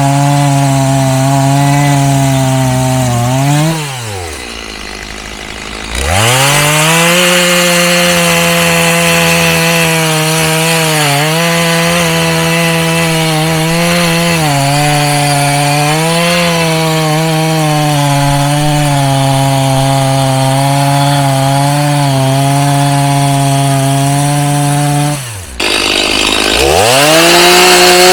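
Two-stroke chainsaw running near full throttle, its pitch dipping briefly several times as it loads up in the wood. Near the start it falls to idle for about two seconds, then revs back up. Near the end it drops off sharply and revs up again.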